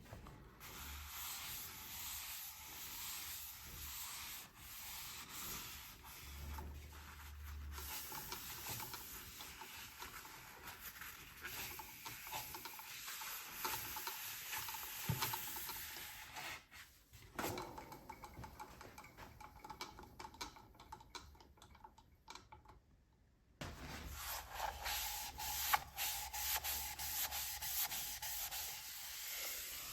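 Sandpaper rubbing against rainbow plywood spinning on a wood lathe, a steady hiss that breaks off briefly about three-quarters of the way through, then starts again.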